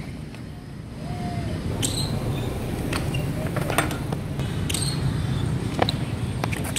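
A steady low rumble of street traffic, with a handful of sharp clacks from a BMX bike on stone paving as the rider lands, bails and the bike drops to the ground.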